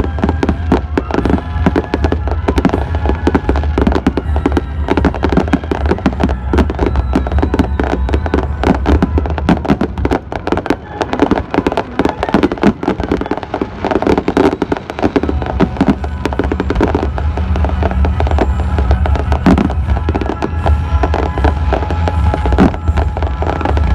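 Fireworks going off in quick succession, a dense run of bangs and crackles throughout, with music playing underneath.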